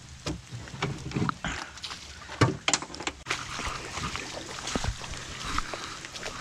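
Knocks, clatter and light splashing of catfish and gear being handled in a small fishing boat, with one sharp knock about two and a half seconds in. A low steady hum runs underneath.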